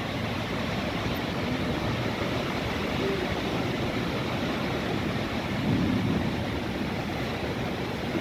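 Heavy rain pouring steadily in gusting wind, with a brief low swell about six seconds in.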